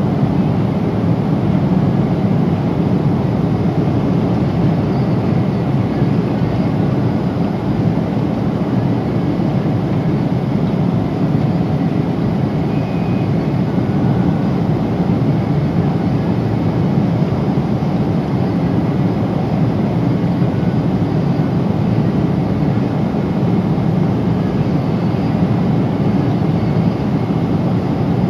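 Steady low roar inside the cabin of a Boeing 777-300 airliner at cruise, the engine and airflow noise even throughout with no distinct knocks or bangs.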